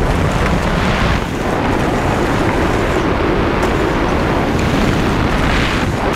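Loud, steady rushing wind buffeting the microphone at speed.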